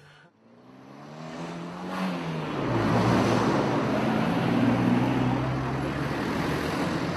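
A large vehicle engine running. Its pitch climbs for about two seconds, drops, then holds a steady drone as a wash of noise grows louder.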